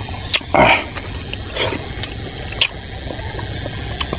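Eating by hand: a few sharp clicks and smacks over a steady rumble and hiss.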